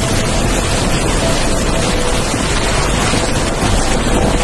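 Muddy floodwater rushing steadily across a road, a loud unbroken wash of moving water.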